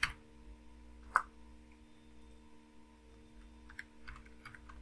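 Sparse computer keyboard keystrokes and mouse clicks: a sharp click at the start, another about a second in, and a few faint taps near the end, over a faint steady hum.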